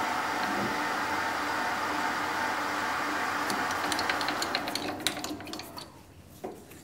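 A 10x22 metal lathe running, its spindle turning a W1 tool-steel part while a spotting drill in the tailstock chuck starts a hole in its end. About four to five seconds in the motor is switched off and the running noise dies away as the spindle spins down, with a quick run of light clicks and then a few taps near the end.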